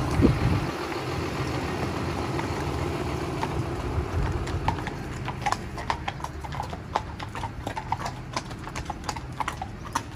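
Horse hooves clip-clopping at a walk. From about four seconds in, the hoof strikes ring out sharp and clear on hard ground.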